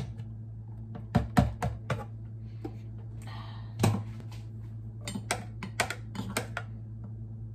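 Light clicks and taps of kitchen utensils and containers being handled, in a few small clusters: about a second in, once more loudly near four seconds, and several more between five and six and a half seconds. A steady low hum runs underneath.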